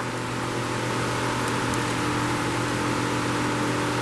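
Electric shop fan running steadily: an even rush of air with a low steady hum.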